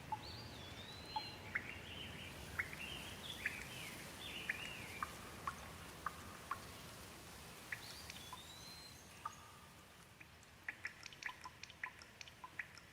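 Birds chirping in short, swooping calls over a steady hiss of rain. About ten seconds in, a quick run of water drips takes over.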